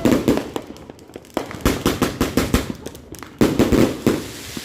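Consumer fireworks going off: a rapid, irregular series of bangs and crackling pops, with a loud cluster of bangs about three and a half seconds in. The tail of a whistling shell dies away at the very start.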